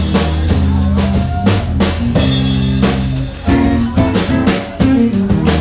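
Live band playing: a drum kit keeps a steady beat over deep, held bass notes, with guitar on top.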